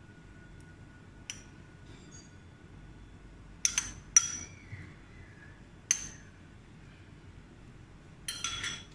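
Metal spoon clinking against a bowl, a handful of sharp taps spread out with a quick cluster near the end, as sauce is scooped and spooned out.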